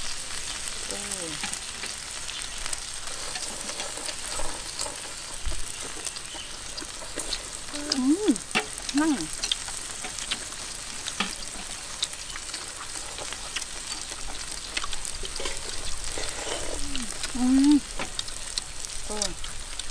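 Beef sizzling steadily on a metal dome grill pan over a portable gas stove, with scattered light clicks of chopsticks and bowls and a few brief murmurs.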